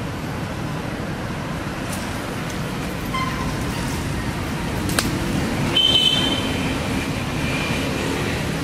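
Steady outdoor road-traffic noise, a low even rumble. A sharp click comes about five seconds in, and a short high-pitched tone sounds just before six seconds.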